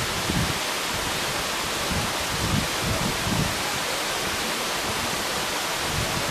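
Steady rushing hiss, with a few soft low buffets about half a second in and again between two and three and a half seconds in.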